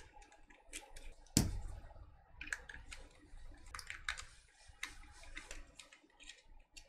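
Small clicks and ticks of a precision screwdriver backing small screws out of a handheld air quality monitor's plastic case, with light taps as the case and screws are handled. One louder knock about a second and a half in.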